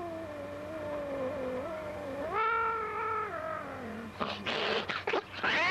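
Angry black-and-white alley cat yowling: one long drawn-out yowl that slowly falls in pitch, rises for about a second midway, then sinks low, followed near the end by harsher, ragged yowls.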